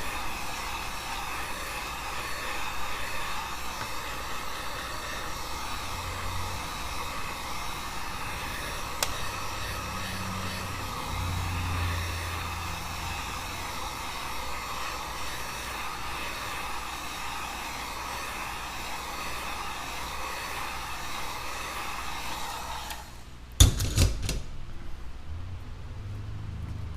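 Hot-air blower running steadily, heating the new iPad Air digitizer glass to activate its adhesive. It switches off about 23 seconds in, followed by a couple of sharp knocks.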